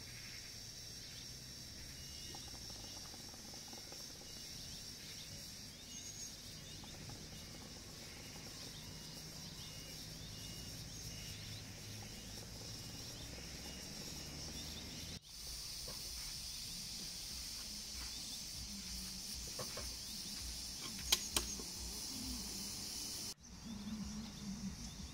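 Steady outdoor background of an even, high insect drone, such as crickets or cicadas in the trees, with a faint hiss beneath it. It breaks off abruptly twice and picks up again, with a few faint clicks.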